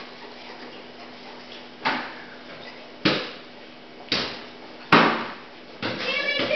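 Five sharp knocks about a second apart, each ringing briefly before fading.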